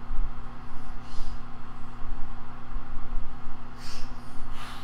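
Steady low hum and rumble of background noise, with a few faint brief hisses about a second in and near the end.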